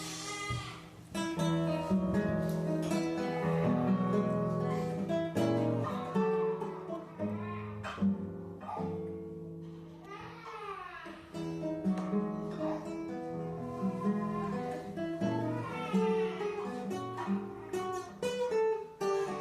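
Acoustic guitar music: notes plucked over a repeating bass line, with some strumming and a gliding melody line above.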